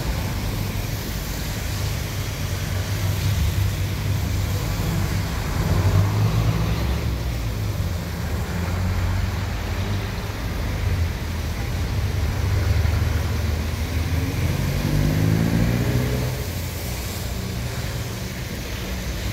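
Jeepneys' diesel engines rumbling past close by, with tyres on the wet road. About three quarters of the way through, one engine revs up, rising in pitch as it pulls away.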